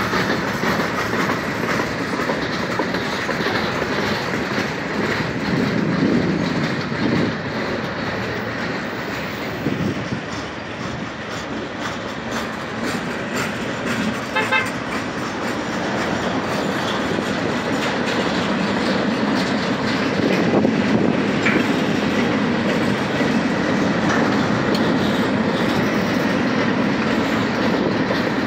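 Cars of a manifest freight train, centerbeam lumber flatcars, rolling past: a steady noise of steel wheels running on the rails.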